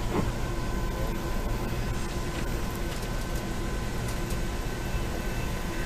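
Acela Express train running, heard from inside a passenger car: a steady low rumble and hiss with a faint steady whine and a few light ticks.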